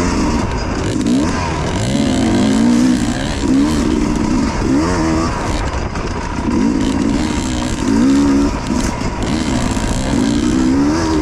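Dirt bike engine revving up and down over and over as the throttle is worked, its pitch rising and falling every second or two.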